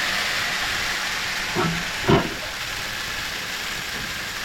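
Grain-handling equipment, a bucket elevator leg and drag conveyor, running with grain moving through it: a steady hissing rush. A short voice breaks in twice about two seconds in.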